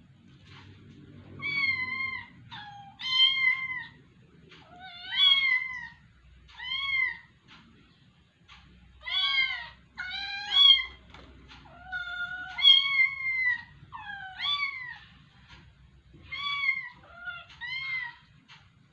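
A cat meowing over and over: about a dozen short, high meows, some rising and falling in pitch, the first about a second and a half in and the last near the end.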